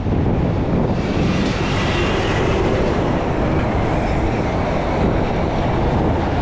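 Road traffic passing close by at a busy intersection, cars and a heavy truck, making a loud, steady rumble of engines and tyres. It gets brighter and hissier about a second in.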